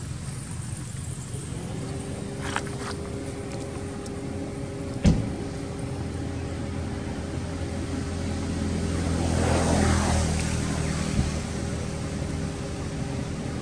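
A motor vehicle's engine running steadily, a low hum that swells around two-thirds of the way through as it comes closer, with one sharp knock about five seconds in.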